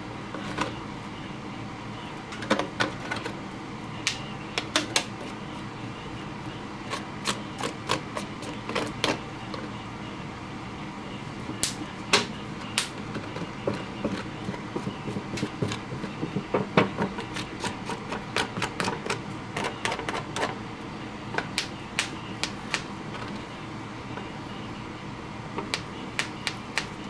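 Metal spatula mixing two-part stock bedding compound, resin and hardener, in an aluminium foil pie tin: irregular clicks, taps and scrapes of the blade against the thin tin.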